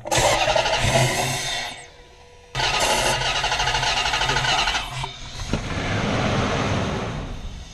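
Range Rover engine cranking over on the starter without firing: a burst of cranking of about two seconds, then after a short pause a longer stretch of cranking that fades near the end. It cranks but won't start, which the mechanic is pretty sure is a bad fuel pump.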